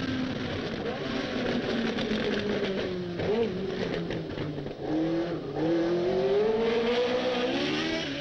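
Tyrrell P34's Ford Cosworth DFV V8 racing engine running hard through the gears, its pitch rising and falling. It drops briefly about four to five seconds in, then climbs steadily until near the end.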